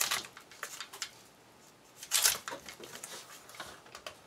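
Crinkling and rustling of a firework shell's foil-and-paper wrap as it is cut and peeled off by hand, with small clicks and scrapes. A louder rustle comes about two seconds in.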